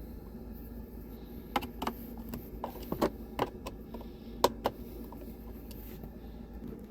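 A run of irregular light clicks and taps, about ten in a few seconds, as a T30 Torx driver works the screws out of a truck's plastic steering-column cover.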